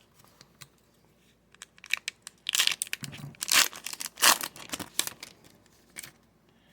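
Foil trading-card pack wrapper being torn open and crinkled by hand, in a run of crackling bursts through the middle few seconds.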